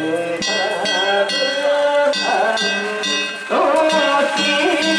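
Danjiri festival music: small hand gongs (kane) struck in a quick steady rhythm, about two and a half strokes a second, ringing bright and metallic, with a wavering melody over them. The music dips briefly about three and a half seconds in, then comes back louder.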